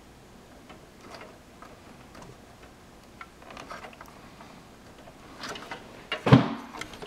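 Light clicks and short scrapes of hands working on a desktop computer's heatsink and motherboard, with one sharp, much louder knock a little after six seconds in.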